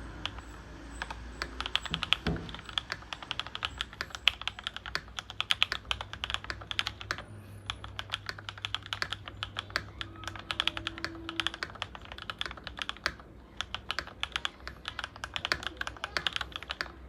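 Fast typing on a MonsGeek MG75 mechanical keyboard fitted with SOTC switches and ABS doubleshot keycaps: a dense, continuous run of keystroke clicks, broken by a couple of short pauses.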